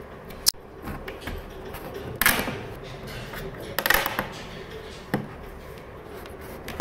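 Plastic wedge buttons being pressed by hand into the edge of a side table's back panel: four or so separate sharp clicks and knocks as they are pushed home.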